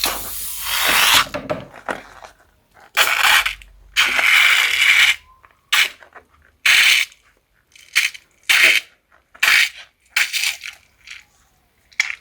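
Glue-filled rubber balloons being cut open and squeezed out into a bowl: a run of crackly, squelchy handling noises, a few longer ones at first, then shorter ones in quicker succession.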